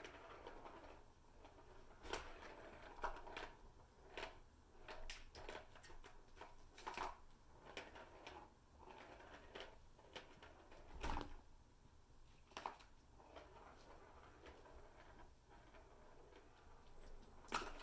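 Light, scattered clicks and knocks of kittens' paws and plastic balls against a Catit Senses Super Roller Circuit plastic ball-track toy, with a louder, deeper thump about eleven seconds in.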